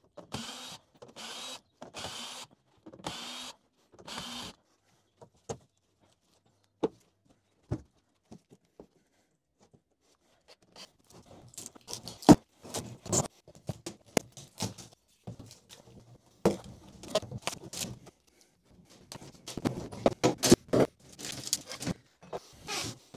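Cordless drill-driver running in short bursts, about five in the first four and a half seconds, backing screws out of a plywood shipping crate. After a few scattered clicks, from about eleven seconds in, irregular knocks and scrapes of the plywood crate panels being handled.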